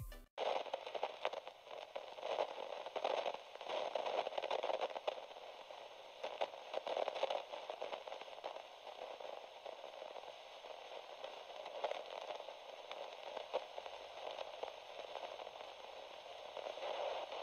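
Faint, thin static hiss with scattered crackles and pops, like a radio tuned between stations.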